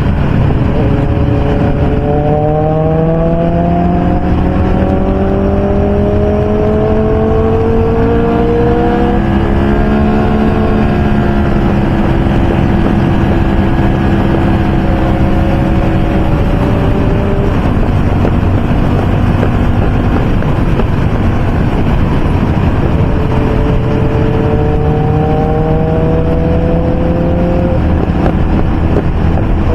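Motorcycle engine at highway speed with wind rush. It pulls up in pitch over the first ten seconds, holds a steady cruise through the middle, then pulls up again near the end.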